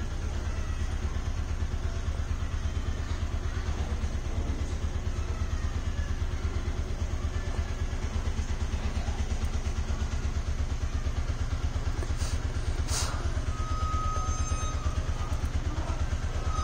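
An engine running at idle, a steady low rumble with a fast, even pulse.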